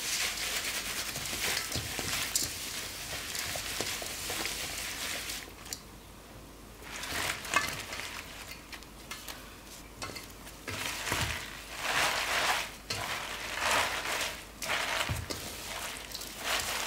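Gloved hand mixing red chili-pepper seasoning in a stainless steel bowl, a steady gritty rustle. A sharp knock about seven and a half seconds in as napa cabbage is tipped in from a metal container, then the leaves are tossed and squished against the bowl in irregular strokes.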